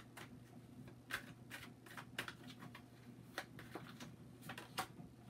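A tarot deck being shuffled by hand: faint, irregular clicks and taps of cards against one another, over a steady low hum.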